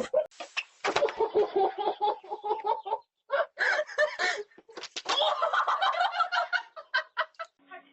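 Chicken clucking and squawking in rapid, repeated calls, with a brief pause about three seconds in, stopping abruptly near the end.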